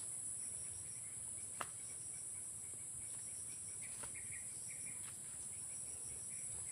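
Insects droning steadily at a high pitch, with a faint, rapidly pulsing chirp above and scattered short chirps lower down. A single light click comes about one and a half seconds in.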